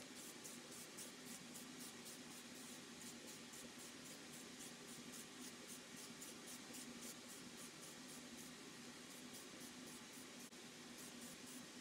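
Faint, quick short spurts of a sprayer, about four a second with a brief pause near the end, as a wood finish is misted onto the bare wooden puzzle pieces. Under it runs a faint steady low hum.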